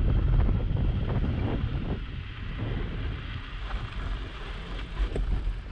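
Wind rumbling on the microphone of a bike-mounted action camera while cycling over packed snow, easing off about two seconds in, with a few faint crackles.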